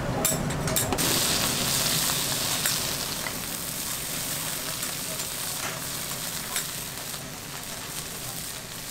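Radish cake frying in oil on a hot griddle: a steady sizzle that swells about a second in and slowly eases, with a few light clinks.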